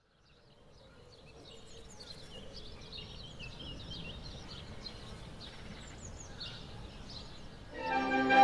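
Birds chirping, many short calls gliding up and down, over a faint outdoor background hum, fading in at the start. Near the end a violin, accordion and clarinet trio starts playing klezmer, much louder than the birds.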